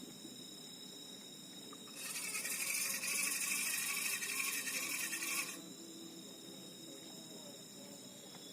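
Night insects trilling steadily in high, thin tones, with a louder rasping buzz starting about two seconds in and stopping suddenly some three and a half seconds later.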